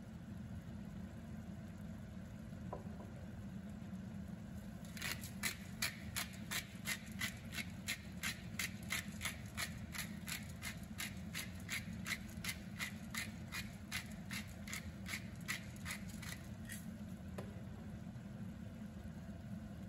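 Hand-twisted spice grinder mill grinding over a pan: a run of regular dry clicks, about two to three a second, starting about five seconds in and stopping about twelve seconds later, over a steady low hum.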